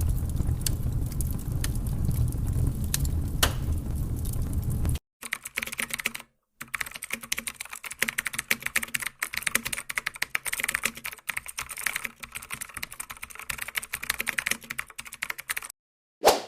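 Rapid computer-keyboard typing from a stock sound effect: a dense run of quick small clicks lasting about ten seconds. Before it comes a low rumble with scattered clicks that cuts off suddenly about five seconds in, and one short sharp sound comes near the end.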